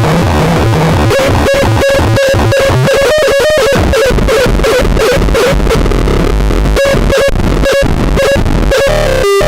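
Circuit-bent noise sequencer playing loud glitchy electronic noise: a dense buzzing, crackling texture chopped by sudden stuttering dropouts, with a short pitched beep repeating through it. Near the end it changes to a cleaner pulsing tone.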